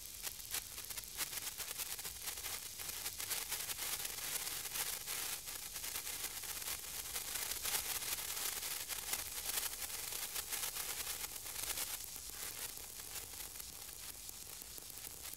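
Senko hanabi, a small Japanese hand-held sparkler, sizzling and crackling with a dense run of fine spitting crackles over a steady hiss, easing slightly near the end.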